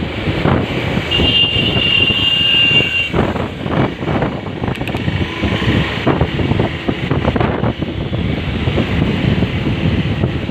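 Road traffic noise, a steady low rumble with irregular knocks and bumps, with wind buffeting the microphone. A high steady tone sounds for about two seconds near the start.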